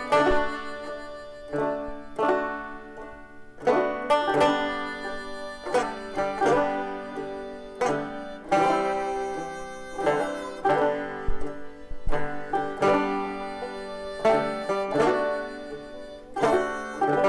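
Instrumental music on a plucked string instrument: notes picked one after another, each struck sharply and left to ring.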